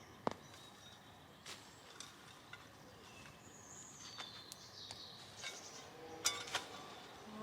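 Scattered light knocks and scrapes of potatoes being dug by hand from dry soil, a sharp one just after the start and a cluster near the end. Faint high bird chirps come in the middle.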